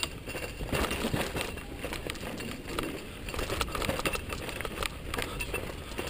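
Mountain bike riding over a rocky dirt trail: tyres crunching on gravel and dirt, with many quick clicks and rattles from the bike jolting over stones and roots.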